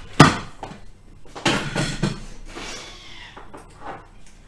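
A sharp click about a quarter second in, then a few lighter knocks and clunks: a stainless steel blender jug and its lid being set and locked into place on the machine.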